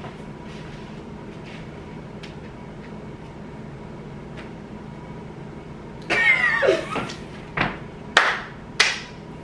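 Faint steady room hum, then about six seconds in a loud excited vocal outburst, followed by three sharp hand claps about half a second apart.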